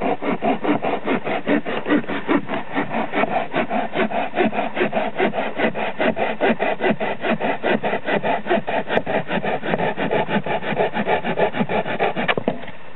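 Bahco Laplander folding pruning saw, a 9-inch blade with seven teeth per inch, sawing through a wooden branch in fast, even back-and-forth strokes. The sawing stops with a sharp click about a second before the end.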